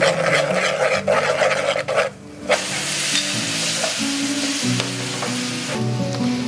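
Brown sauce sizzling in hot oil in an aluminium pot while a spoon scrapes and stirs it. After a short break, a louder, wider sizzle starts as pork pieces go into the pot, easing off near the end. Guitar music plays underneath.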